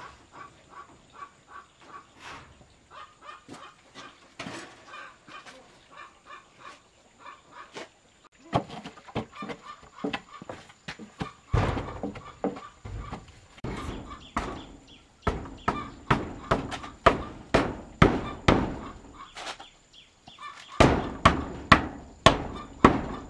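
Rapid repeated blows of a hand tool on wood, faint at first, then loud from about eight seconds in at two or three strokes a second, with a short pause before a final run of hard strikes.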